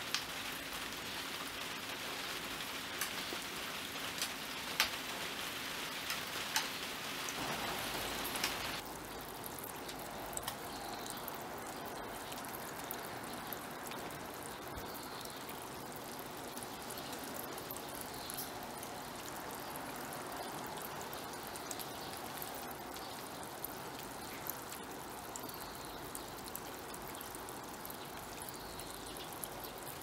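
Rain falling on a garden pond: a steady patter with scattered drop clicks. About nine seconds in it changes suddenly to a steady trickle of water pouring from a bamboo spout (kakehi) into a stone water basin (tsukubai).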